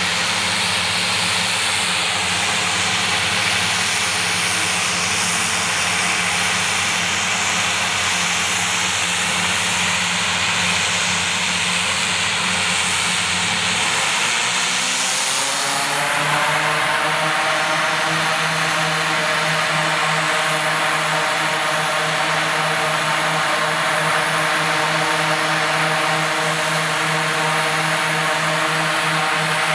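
The Short SC-7 Skyvan's two Garrett TPE331 turboprop engines run on the ground with a high turbine whine. About fourteen seconds in, the pitch rises over a couple of seconds as the engines speed up, then holds steady at the higher speed.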